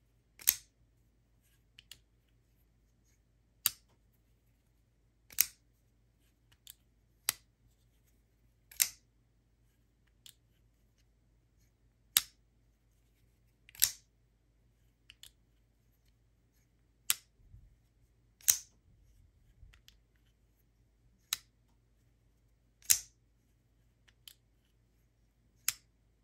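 Hinderer XM-18 3.5 spear point folding knife, its blade turning on phosphor bronze washers, repeatedly flipped open and shut. Each action gives a sharp metallic snap as the blade swings out and locks or is closed. The louder snaps come about every 1.5 to 2 seconds, with fainter clicks between them.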